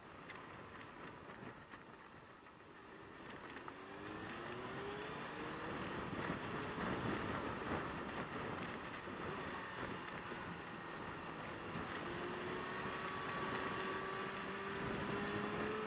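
Yamaha YZF600R Thundercat's inline-four engine pulling with rising revs under acceleration, twice, over a steady rush of wind and road noise that grows louder about four seconds in.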